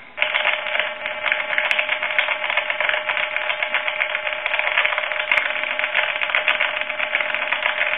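Time-and-temperature line recording heard through a Harris TS22 lineman's buttset: a dense, steady, thin clatter with a held tone underneath and no words. The repairman puts any such digital garble down to the recording, not the telephone.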